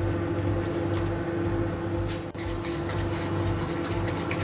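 Silicone spatula stirring flour and water into a thick paste in a bowl, with soft squishing and scraping as the water is added, over a steady low hum.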